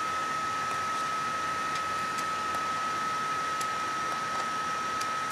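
Steady background hiss with a constant high-pitched whine, and a few faint clicks as the plastic case and small parts of an RC car transmission are handled.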